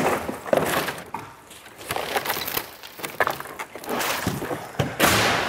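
Scrap timber and rusty metal clattering and knocking as they are pulled about by hand, then a heavy crash about five seconds in as a large slab falls onto the floor.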